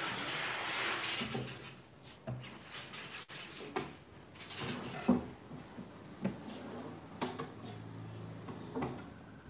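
Squeegee dragged across a silkscreen with a scraping swish for the first second or two, then scattered knocks and clunks of the screen frame and press, the loudest about five seconds in.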